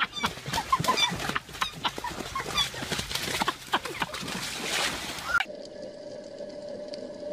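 Black swan attacking: wings flapping, short repeated calls, and rustling and crashing through dry reeds. About five seconds in, this cuts off suddenly and gives way to dull underwater sound with a steady low hum.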